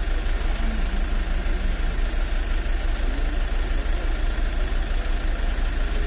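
Ambulance engine idling with a steady low rumble.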